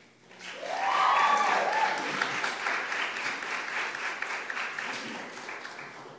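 A small group applauding and cheering, starting about half a second in, with a few whooping voices over the first couple of seconds; the clapping carries on and slowly fades.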